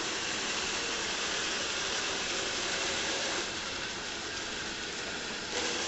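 Remote-controlled Roomba robot vacuums running, giving a steady whirring hiss from their motors.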